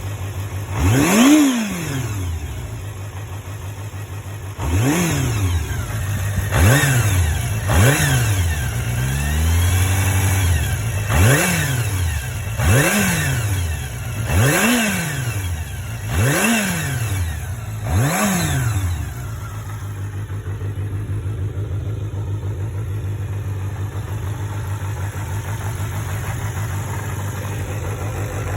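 Kawasaki Zephyr 400χ's air-cooled inline-four blipped again and again, about ten quick revs that each rise and fall back, for the first twenty seconds. It then settles to a steady idle. The seller calls the engine excellent, with no abnormal noises.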